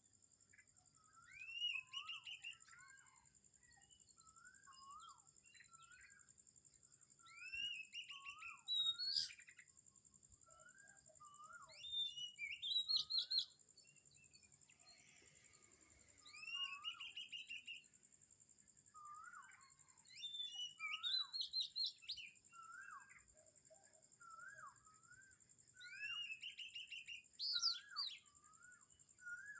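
Birds singing: a loud phrase of rising notes that break into a quick trill, repeated every four or five seconds, over a second bird's shorter, lower slurred notes. A steady high-pitched whine runs underneath.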